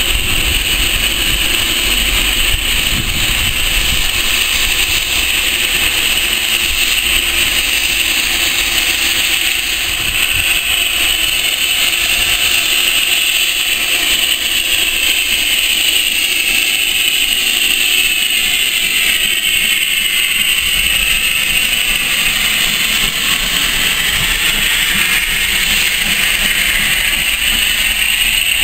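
Steam locomotive and its train running past: a steady loud hiss over a low rumble, shifting in tone over the last several seconds as it goes by.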